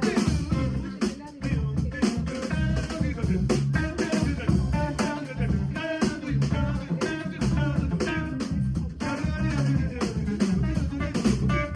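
Live trio of guitar, bass guitar and drum kit playing a funky blues groove, the guitar picking out melodic lines over the bass and drums.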